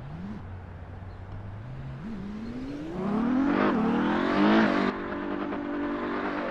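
Ferrari 812 Superfast's naturally aspirated V12 pulling away and revving up: a quiet low note with two short blips, then a loud climbing note that dips once in pitch about three and a half seconds in, as in an upshift, and climbs again. It settles to a steady note about five seconds in.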